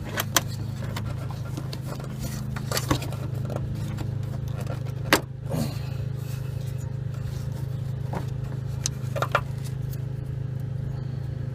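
Sharp plastic clicks and knocks as the 2003 Mitsubishi Lancer's parking-light bulb socket is twisted counterclockwise and worked out of the headlight housing, the loudest about five seconds in. A steady low hum runs underneath.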